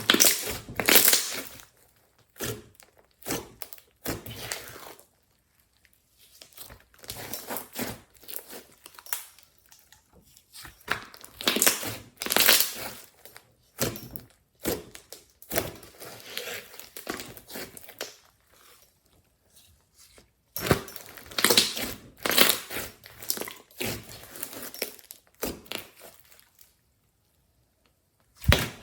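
Glossy slime being squeezed, stretched and folded by hand, giving bursts of wet crackling and popping that come in handfuls with short pauses between.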